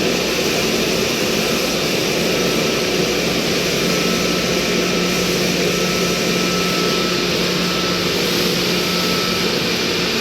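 Large HVAC machinery, such as an air-cooled chiller's fans and compressor, running with a loud steady rushing noise over a constant low hum, with a faint high whine coming and going.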